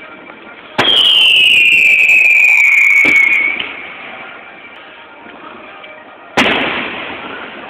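Fireworks: a loud whistle that falls steadily in pitch for nearly three seconds, then, about six seconds in, the sharp bang of a shell bursting, dying away over about a second.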